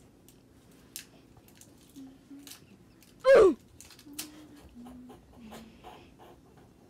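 A person's brief high-pitched squeal that glides sharply down in pitch, a little after the middle, and is the loudest sound; around it come soft short low hums and light clicks.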